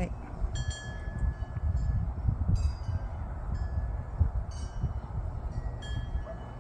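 Wind chimes ringing in the breeze, a few metallic notes struck at irregular moments, over a steady low rumble of wind on the microphone.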